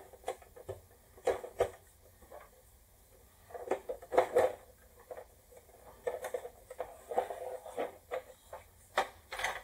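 Plastic parts of an old toy game being handled and taken apart: scattered short clicks and knocks, some in quick little clusters, with quiet gaps between.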